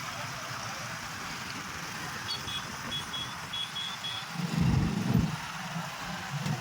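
Road traffic noise, a steady hum and hiss. About two seconds in comes a quick run of about six short high-pitched beeps, and a louder low rumble swells up about four and a half seconds in.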